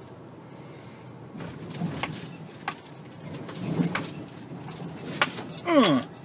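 Inside a vehicle's cab rolling over speed bumps, with a low steady engine hum. The body clunks and rattles several times, and a short falling groan comes near the end.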